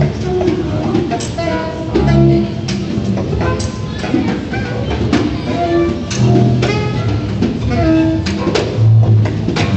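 Free-improvised acoustic jazz from saxophone, double bass and snare drum: short held saxophone notes over low bass notes, with scattered drum strikes.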